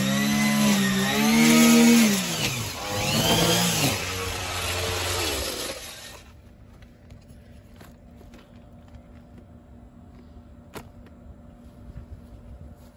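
A small engine revving up and easing off several times, then shut off about six seconds in. A single sharp click follows near the end.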